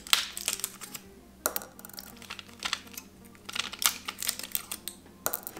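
Plastic-and-foil blister pack crackling and clicking as tablets are pushed out through the foil, in several short bursts of crackles a second or so apart.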